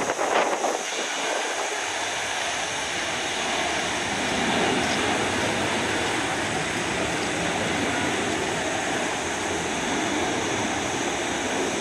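Jet engines of a Boeing 787 airliner at taxi power as it turns onto the runway: a steady, distant rushing noise, briefly louder just after the start.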